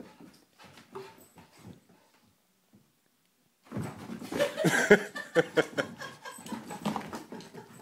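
A red heeler (Australian cattle dog) and a young dog play-fighting, with scattered growls and whines, a brief lull, then a loud, busy scuffle of overlapping growls and yelps from about four seconds in.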